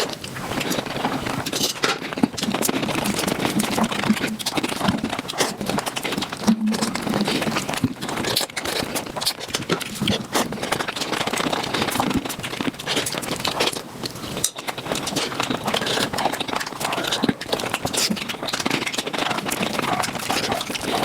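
Eating sounds played at five times speed: mutton nalli being chewed and sucked, a dense, unbroken run of rapid wet smacks and clicks.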